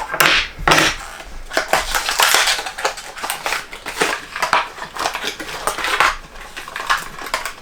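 Product packaging being opened and handled by hand: an irregular run of crackling, rustling and scraping noises.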